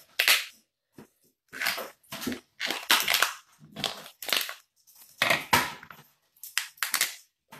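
Cooked lobster shell cracking and crunching as it is torn apart by hand, in a string of short, irregular crackles.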